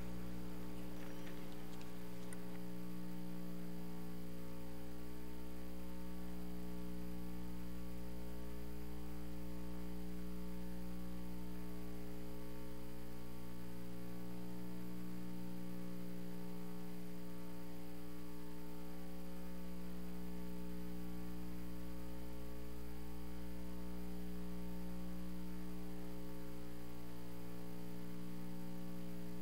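Steady electrical mains hum: a constant buzz of 60 Hz and its overtones, unchanging throughout.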